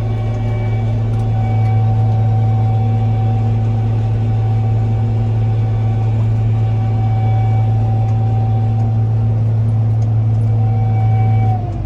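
Combine harvester running steadily while unloading corn into a truck: a loud, even low drone with a steady higher tone over it. Near the end the sound drops a little in level and shifts in pitch.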